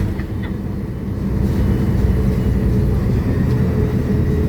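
Mercedes-Benz O500U BT5 bus's diesel engine and Voith automatic driveline running under way, heard inside the cabin: a steady low rumble with a faint steady whine.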